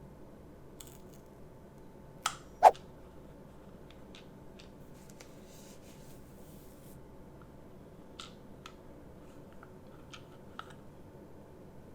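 Plastic clicks of a Rubik's Impossible cube being twisted: two sharp clacks about two seconds in, the second the loudest, then scattered lighter clicks later, over a steady low room hiss.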